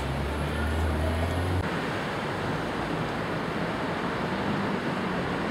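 Outdoor city street noise: a steady rush of wind and traffic, with a low hum under it that stops about a second and a half in.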